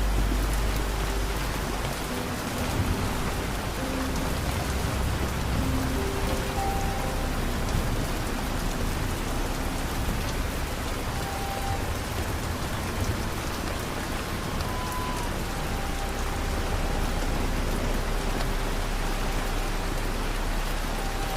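Steady rain, an even hiss, with slow, soft melody notes of relaxation music laid over it. There is a low rumble in the first couple of seconds.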